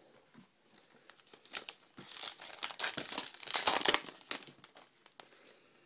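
A baseball card pack's wrapper being torn open and crinkled. The crackling is loudest between about two and four seconds in, with a few light clicks before and after.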